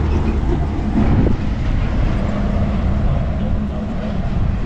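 Steady low rumble of road traffic crossing a concrete bridge, with a faint engine hum.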